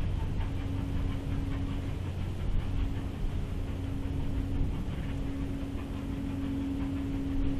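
Southern Railway Bulleid pacific 34070 Manston approaching from a distance, heard as a faint low rumble with a steady hum.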